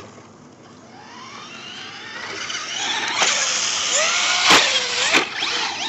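Electric motor of a Traxxas 4x4 RC car whining and rising in pitch as it accelerates and comes closer, the revs then rising and falling under the throttle. Several sharp knocks come in the second half as the car hits the dirt over the jumps.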